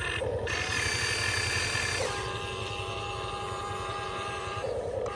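Electric motors and gearboxes of a Huina 1592 RC excavator whining as the boom lifts a bucket of sand and the upper body swings round; the whine changes pitch about two seconds in.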